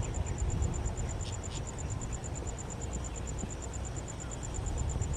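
An insect's high, rapidly pulsed trill, about nine even pulses a second, runs over a steady low rumble. Two short high notes come about a second in, close together.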